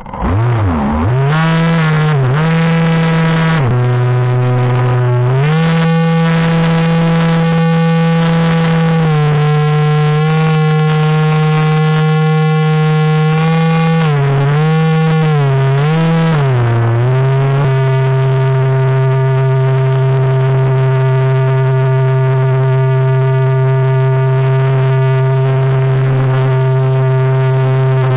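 RC boat's motor whining at speed, its pitch dipping and rising several times in the first half, then holding steady for the last third.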